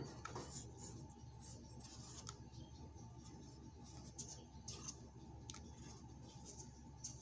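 Knife shaving the skin off a bottle gourd (upo): faint, irregular scraping strokes about once a second over a low steady room hum.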